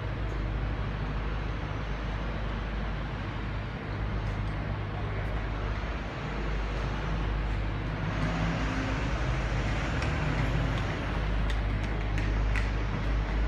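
Railway station platform ambience: a steady low rumble of trains at the platforms, swelling about eight seconds in, with a few light clicks near the end.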